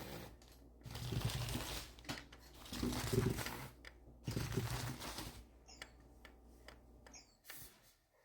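Undercover cat toy running: bursts of rustling and whirring as its motorised feather sweeps under the fabric cover. Near the end come two short high electronic bird chirps, about a second and a half apart.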